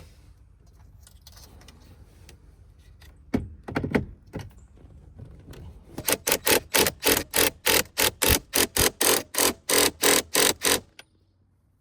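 Steering wheel being fitted onto the steering column: a few knocks, then a fast, even series of about twenty sharp clicks, roughly four a second, that lasts about five seconds and stops abruptly.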